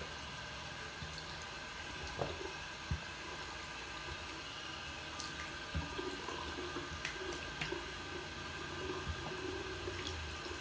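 Bathroom sink tap running steadily into the basin, with a few small clicks and splashes.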